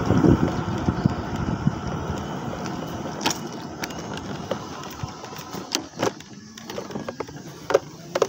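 Wind rushing over the microphone and rolling noise while an electric bicycle is ridden, dying away over the first few seconds as it slows. A few sharp knocks and clicks from the bike follow as it rolls off the road onto grass.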